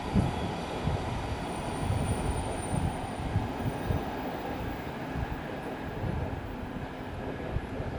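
Electric commuter train running along the Odakyu Line tracks and moving away as its last cars pass.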